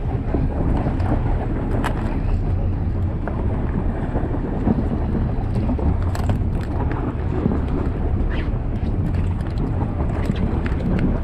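Wind buffeting the microphone aboard a fishing boat: a steady low rumble with a few faint clicks.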